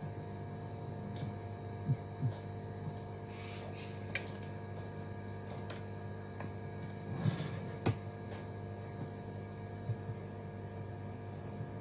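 Steady electrical hum made of several tones from the powered bench power-supply setup, with a few light knocks and clicks as a small black electronics box is handled and tipped up.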